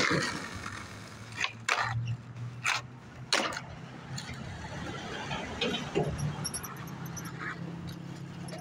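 A skateboard knocks against the pavement and curb in four sharp clacks within the first three and a half seconds, then things go quieter over a low steady hum.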